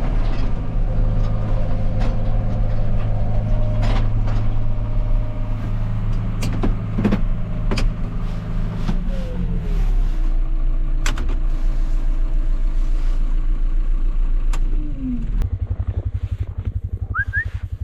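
Tractor engine running steadily with scattered clanks. About nine seconds in the engine note drops. A steady whine carries on and then winds down around fifteen seconds, and the engine settles into a fast, even low throb.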